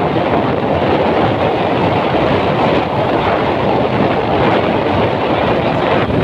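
Motorcycles moving along at road speed: a steady rush of engine, tyre and wind noise, with wind buffeting the microphone.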